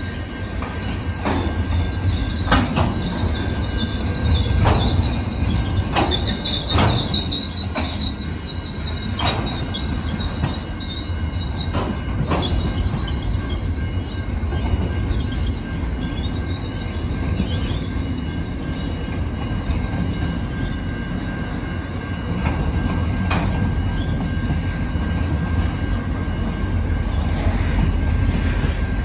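Container wagons of a long intermodal freight train rolling past with a steady low rumble. The wheels click sharply over the rail joints every second or so, and a thin high wheel squeal fades out about halfway through.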